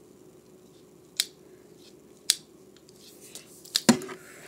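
Handling noise from a long white bar-like object: sharp clicks about a second apart, then a loud cluster of clacks with a thump near the end.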